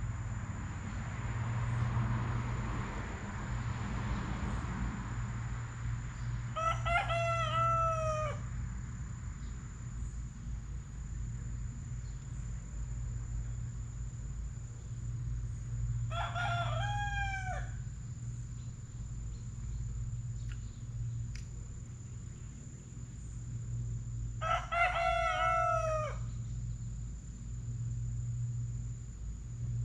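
A rooster crowing three times, about nine seconds apart, each crow lasting a second and a half to two seconds, over a steady low hum.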